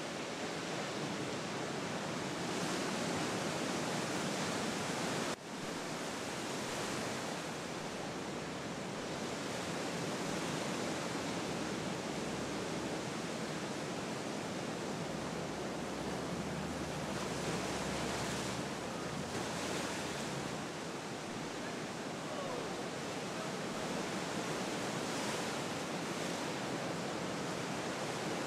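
Ocean surf breaking and washing, a steady rushing noise that swells and eases every few seconds, with a brief dip about five seconds in.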